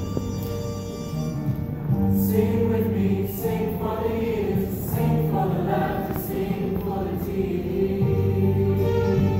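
A choir singing, with held notes over steady low tones.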